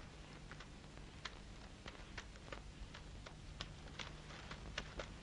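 Near silence on an old film soundtrack: a steady low hum with faint, irregular clicks and crackles scattered through it.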